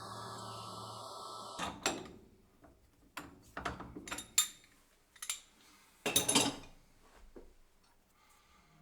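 Small milling machine's motor running steadily, shutting off about one and a half seconds in, followed by a series of sharp metallic clinks and clatters, loudest around four and six seconds in.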